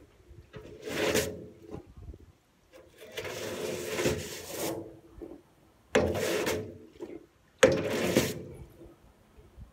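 Long-handled brush scrubbing the tray of a wheelbarrow in repeated strokes, about five, each lasting a second or two with short pauses between.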